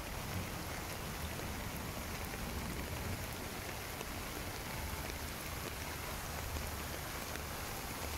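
Steady rain falling on a pond's surface: a constant hiss dotted with faint drop ticks, over a low steady rumble.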